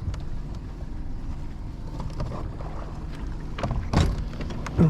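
Bass boat outboard motor running steadily underway, with two loud thumps about four seconds in and near the end.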